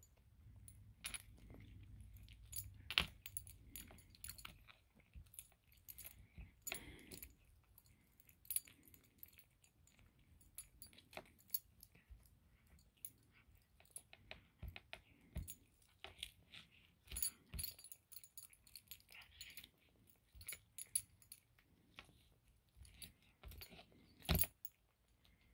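Maine Coon cat eating a piece of fried chicken: faint, irregular crunching and sharp clicks as it chews and tears at it.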